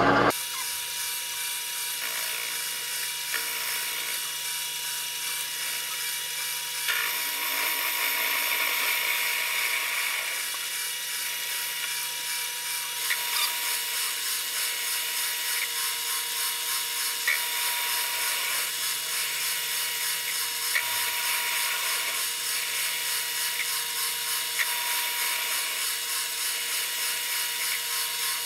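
Grizzly G0768 benchtop metal lathe running, its chuck spinning while the cutting tool faces off the back of a steel part. Steady motor and gear whine with a high hum; the cutting noise grows louder for a few seconds early on, and there are a few light ticks.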